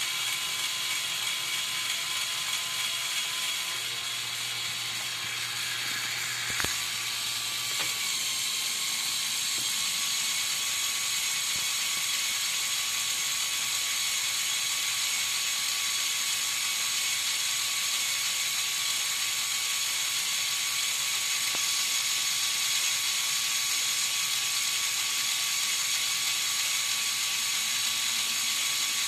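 Lego Technic crane truck's electric motor and plastic gear train running steadily while moving the crane boom, a whirring with a steady whine that shifts slightly in pitch about eight seconds in. A single click about six and a half seconds in.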